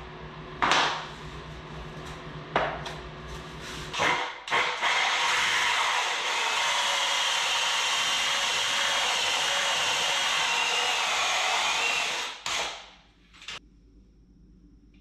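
A few separate rubber-mallet knocks on vinyl plank flooring, then a small electric motor running steadily with a slightly wavering whine for about seven seconds before cutting off abruptly.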